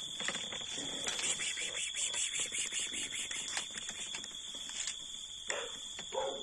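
A cat gives a short meow near the end, over a steady high-pitched whine and a run of quick scratchy ticks.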